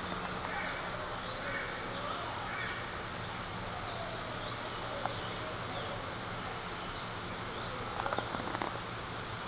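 Many birds chirping and calling in short, repeated pitch-sweeping notes over a steady low hum, with a brief run of clicks about eight seconds in.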